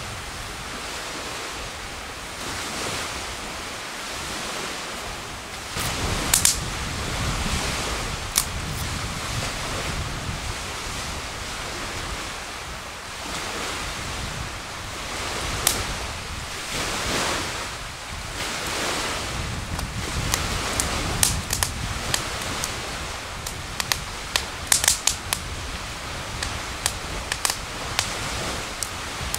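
Wood campfire crackling, with sharp snaps and pops at irregular moments and a cluster of them near the end, over a steady rushing hiss.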